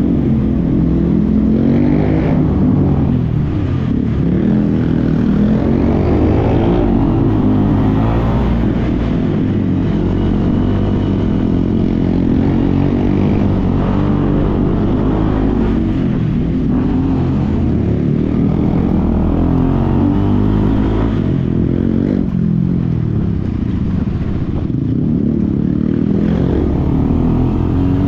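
KTM Adventure motorcycle engine running through a Yoshimura R77 full-system exhaust, heard from the saddle. Its pitch rises and falls over and over as the throttle is opened and closed, with a short easing off about three-quarters of the way through.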